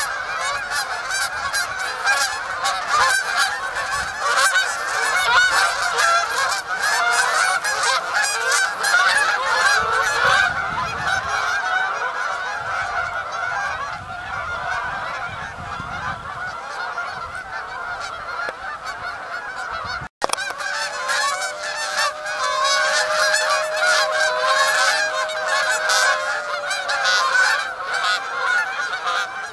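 A large flock of Canada geese honking in flight: a dense, unbroken chorus of many overlapping calls. The sound cuts out for an instant about two-thirds of the way through.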